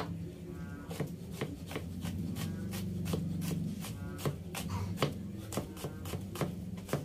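Chef's knife chopping garlic cloves on a wooden cutting board: quick, uneven knocks of the blade on the board, about three a second.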